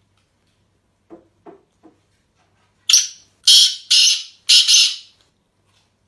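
A caged black francolin (Sindhi kala teetar) gives three soft, low notes, then its loud, harsh, grating call: about five rasping notes over two seconds.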